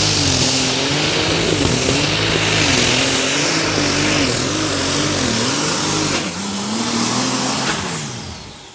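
Super Stock pulling tractor's turbocharged engine running flat out under the load of the sled, its revs wavering up and down, with a high turbo whistle over it. Near the end the engine is shut off and the turbo whine winds down.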